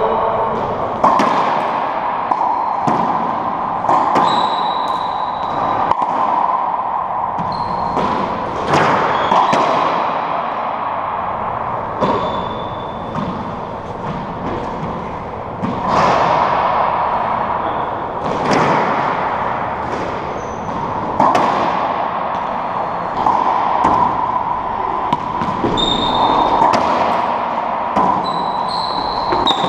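A hollow rubber racquetball is struck by racquets and smacks off the walls and floor of an enclosed court. The sharp, irregular pops each ring with a hard echo. Short high squeaks of sneakers on the hardwood floor come in between the hits.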